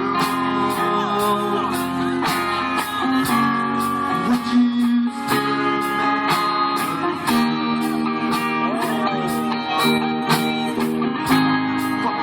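Instrumental rock music: guitar playing held and bending notes over a steady drum beat.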